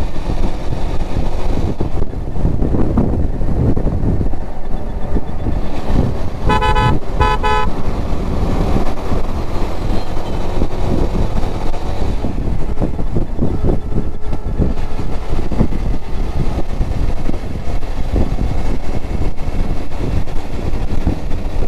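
Motorcycle engine and road noise while riding steadily along a highway. About seven seconds in, a vehicle horn gives a quick string of short beeps.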